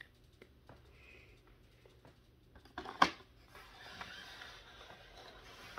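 Handling of markers and a paper colouring book: a few faint ticks, one sharp click about three seconds in, then soft paper rustling and sliding as the book is moved on the table.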